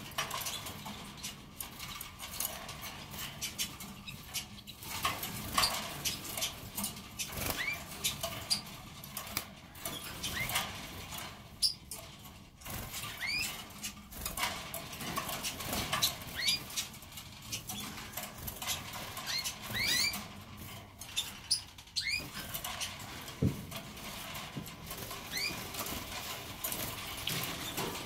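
Caged red factor and dimorphic canaries giving short rising chirp calls every few seconds, sometimes two in quick succession, with scattered small clicks and rustling as the birds move about the cage.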